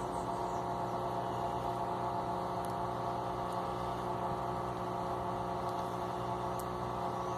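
Electrolux LTE 12 top-loading washing machine in its drain stage, its drain pump running with a steady hum.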